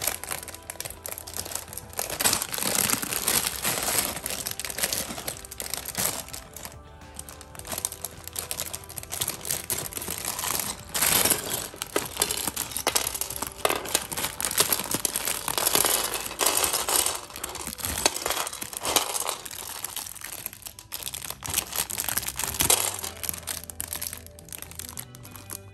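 Clear plastic Lego parts bag crinkling as it is handled and opened, with the bricks emptied out onto a tray. Background music plays underneath.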